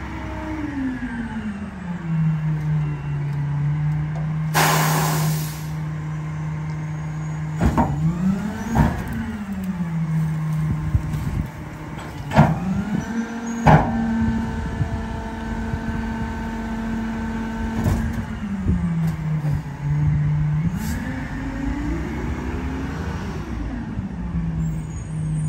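Diesel engine of a Mack Granite garbage truck with a McNeilus rear-loader body: it slows to idle, then an air brake hisses sharply, followed by several loud knocks. The engine is then held at a higher, steady speed for about five seconds while the rear loader's packer cycles, settles back, and revs up and down again as the truck pulls away.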